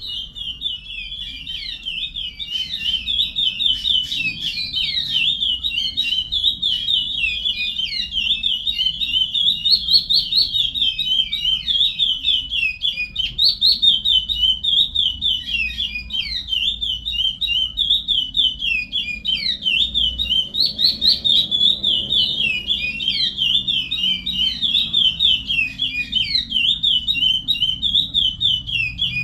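Curió (chestnut-bellied seed finch) singing the Paracambi song type: an unbroken string of rapid, sweeping notes with no pauses.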